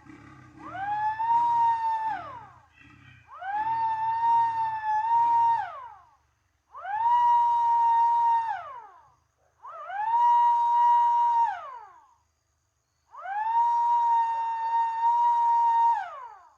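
Modified MS-190 siren sounding five times in a row. Each time it winds quickly up to a steady high tone, holds it for about two seconds, then winds down again, with short gaps between.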